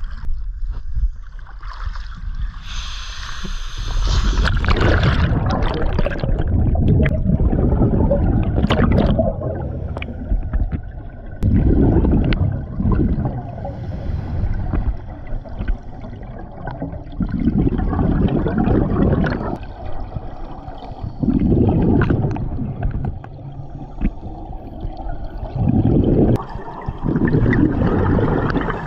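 Scuba exhalation bubbles gurgling out of a diver's regulator, heard underwater, in loud rushing bursts every four or five seconds. Splashing water about three seconds in as the diver goes under.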